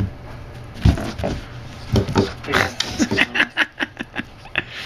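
Boston terrier sniffing and snorting with its nose to the floor in quick short bursts, about four or five a second, while chasing a laser dot, with a few thumps in between.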